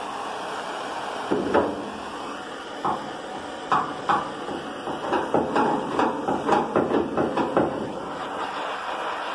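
Handheld butane blowtorch flame hissing steadily while a wooden paddle knocks against the softened body lead on the steel panel as the lead is worked into the repair. A few scattered knocks come first, then a quick run of taps about halfway through.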